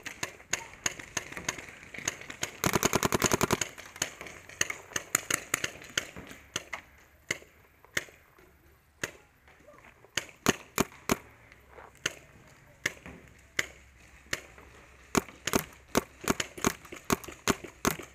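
Paintball markers firing: scattered single pops and short strings of shots, with a rapid burst of shots lasting about a second, the loudest sound, a few seconds in.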